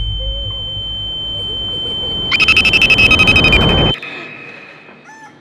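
A steady high-pitched tone over a low drone, joined about two seconds in by the loud, rapid beeping of an electronic alarm clock. Everything cuts off abruptly about four seconds in, leaving a faint fading tone.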